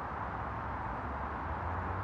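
Faint low drone of a Volkswagen Golf R with a resonator delete approaching from far down the road, slowly getting louder over a steady hiss of wind and distant road noise.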